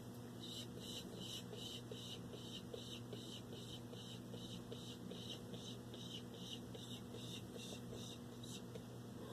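ASMR mouth sounds: an even run of short breathy hisses, about three a second, over a steady low electrical hum.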